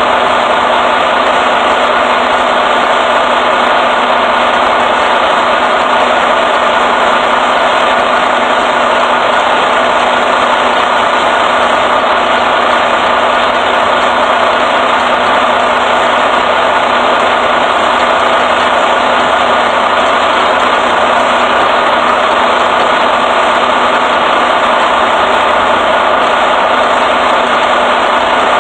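Semi-truck diesel engine idling steadily close by, an even, unbroken drone.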